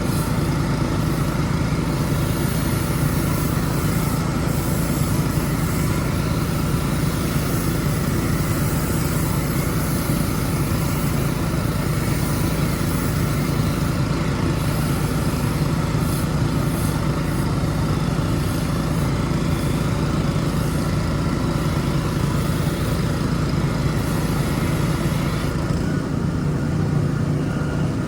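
Gas pressure washer's small engine running steadily under a hiss. The higher hiss drops away near the end while the engine keeps running.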